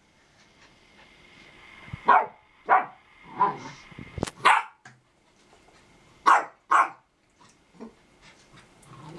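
Samoyed barking in a run of short, sharp barks, several in quick pairs. A single knock sounds about four seconds in.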